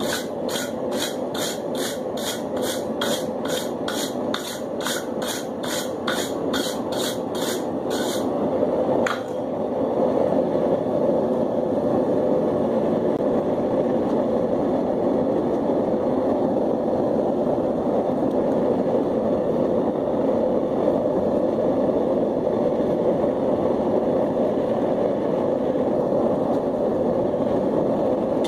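Hammer blows on hot steel at an anvil, about two or three a second, for roughly the first eight seconds, then one more strike. Under them, and louder once the hammering stops, the steady rush of a propane forge burner.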